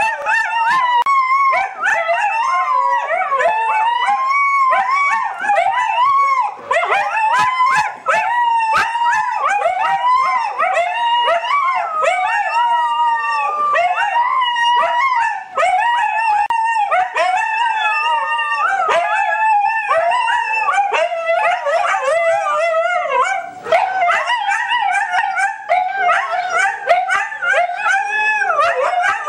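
Two huskies howling together: long, wavering howls that keep rising and falling in pitch and overlap each other, with only brief breaks.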